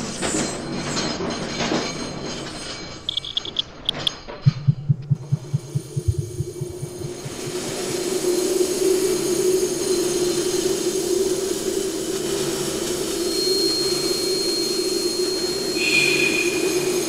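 Electroacoustic soundtrack built from train sounds. Noisy rail clatter gives way to a quick run of low pulses about four seconds in, then settles into a steady low drone with hiss over it, and a thin high tone enters near the end.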